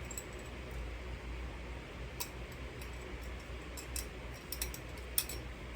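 A few light clicks and taps of small metal hardware, spacers and screws, being handled and fitted, over a steady low hum and hiss.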